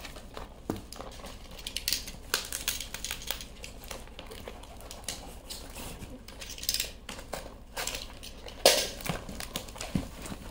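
A box of items being handled and unpacked: irregular rustling of packaging with light knocks and clatter of objects, and one louder knock near the end.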